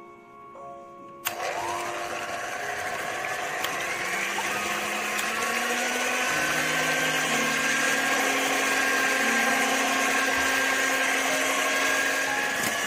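Electric hand mixer switched on about a second in, its motor spinning up with a rising whine and then running steadily at medium speed as its twin wire beaters whip raw egg whites.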